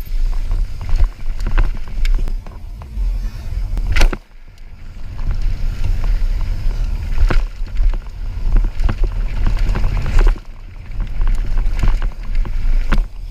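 Mountain bike ridden fast down a dirt trail: wind rumbling on the camera's microphone over the clatter and rattle of the tyres and bike on rough ground. Sharp knocks from the bike hitting bumps or landing come about four seconds in and again about seven seconds in.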